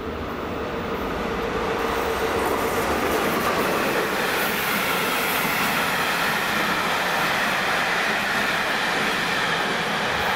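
Train passing on the track: wheel and rail noise builds over the first two seconds, then holds as a steady loud rumble.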